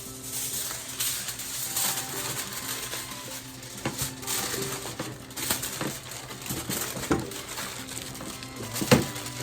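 Aluminium foil crinkling and rustling as lupulu parcels are wrapped by hand, with scattered sharper clicks, the loudest near the end, over soft background music.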